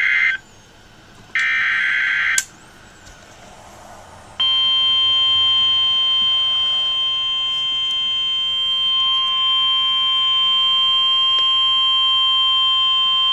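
Emergency Alert System SAME header from NOAA Weather Radio: two short bursts of harsh digital data screech, the first cut off right at the start, the second about a second long. About two seconds later comes the steady single-pitch 1050 Hz warning alarm tone, held for about nine seconds and then cut off abruptly. The tone marks a severe thunderstorm warning.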